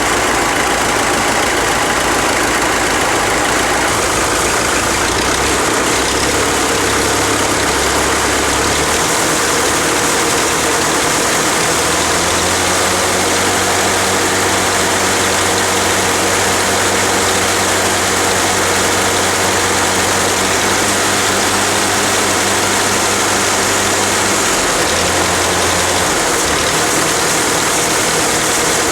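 Farmall diesel tractor engine running steadily. Its low note shifts in pitch a few times.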